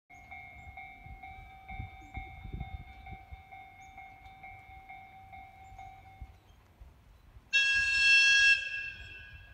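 A KiHa 281 diesel express train sounds its horn once as it approaches the station: a single loud blast of about a second, sounding several tones together, near the end. Before it, a repeating electronic warning tone pulses about two and a half times a second, then stops about two-thirds of the way through.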